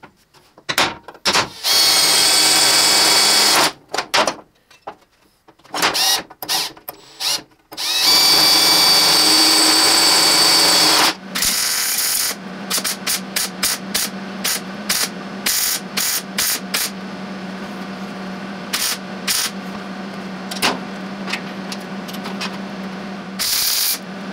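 Cordless drill boring holes through sheet-steel floor pan in two runs of a couple of seconds each, with clicks and knocks around them. Then, from about eleven seconds in, a MIG welder laying plug welds through the holes into a heavier steel bracket: a steady low hum broken by many short crackling bursts of arc.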